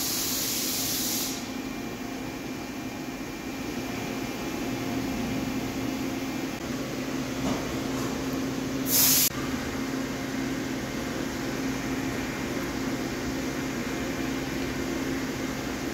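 Steady hum of workshop machinery, with a hiss in the first second and a short, sharper hiss about nine seconds in.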